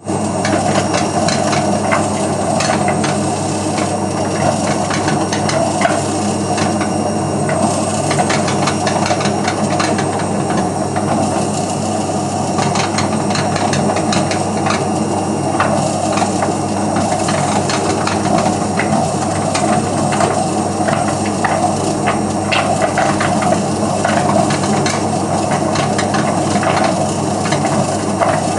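Hotpoint Aquarius WMF520P washing machine running with a steady hum and a constant, irregular rattling and clicking from the drum, the sign of a bad drum spider.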